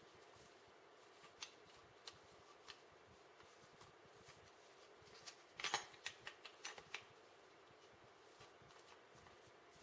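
Faint clicks and light rattles of a plastic microphone shock mount and a RØDE NT1 microphone being handled as the mic is seated into the mount, with a short cluster of louder clicks about six seconds in.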